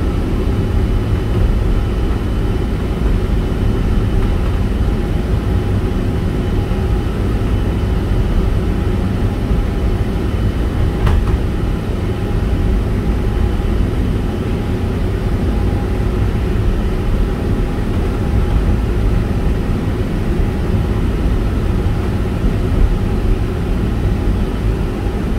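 Resort tram running along its route, a steady low rumble heard from inside the car.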